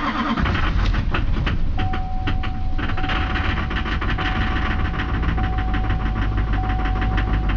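2005 Duramax LLY V8 turbo-diesel catching on a cold start at about −8° and running rough with a rapid, steady clatter of knocks, heard from inside the cab. It is firing on only a few cylinders, a rough cold start that the owner takes as a sign that the glow plugs are still not heating.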